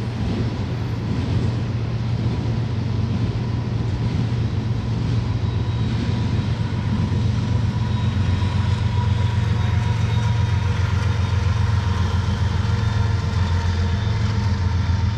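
Double-stack container train rolling past at track speed: a steady low rumble of wheels on rail, with faint thin ringing tones above it.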